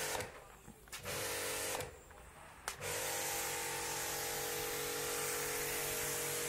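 Small electric motor of a handheld power tool, triggered in two short bursts and then running steadily with an even whine and hiss from about three seconds in.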